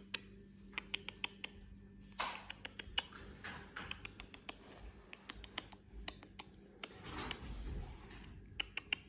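Hand stroking and handling a Pomeranian puppy's fluffy coat close to the microphone: soft rustling swishes among irregular light clicks.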